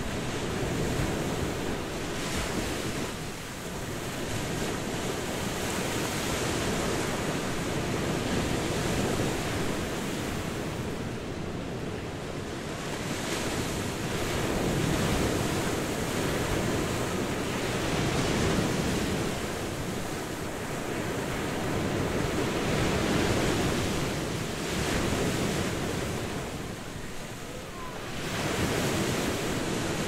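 Sea surf: waves breaking and washing ashore in a continuous hiss that swells and ebbs every few seconds.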